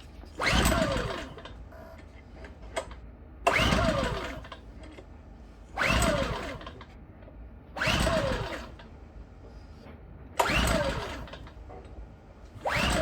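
Champion 8200i inverter generator engine being cranked over again and again without catching: six short cranking bursts about every two seconds, each spinning up suddenly and dying away with a falling pitch. The engine fails to start.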